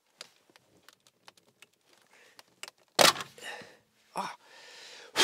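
The plastic lower steering-column trim of a BMW F30 being pulled off by hand. After some faint ticks and rustling, its clips let go with a sharp crack about three seconds in, followed by more plastic clatter as the panel comes free.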